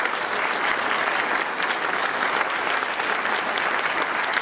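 An audience applauding steadily, many hands clapping together in a large hall.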